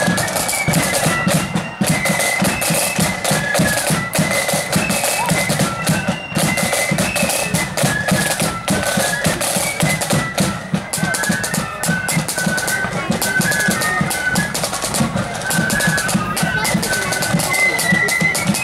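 Blood-and-thunder marching flute band playing a march: massed flutes carry a high tune over rapid, continuous side-drum rolls and a heavy bass drum beat.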